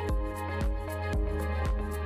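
Background music with a steady beat of about two beats a second over held tones.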